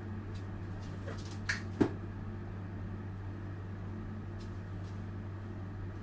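Steady low hum in the room, with a few short handling clicks and knocks about one to two seconds in, the sharpest near two seconds.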